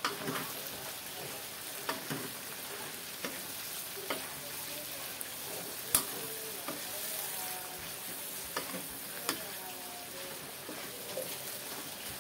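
Bitter gourd slices and leaves sizzling in a wok as a metal spatula stirs and turns them, with irregular knocks of the spatula against the wok every second or two, the sharpest about six seconds in.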